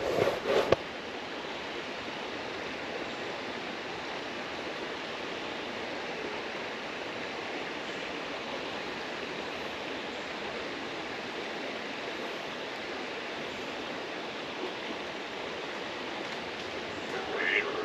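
Creek water running steadily, with a few short knocks in the first second and a brief duck quack near the end.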